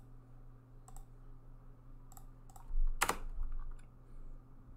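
Computer keyboard keystrokes: a few scattered key presses, the loudest a single sharp keystroke about three seconds in, over a faint steady low hum.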